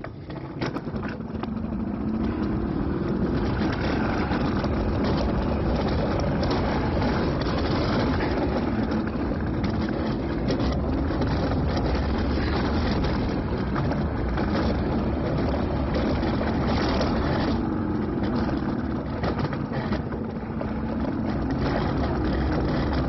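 Alpine coaster sled's wheels running along its steel tube rail at speed, a loud steady rolling rumble that builds over the first couple of seconds as the sled picks up speed.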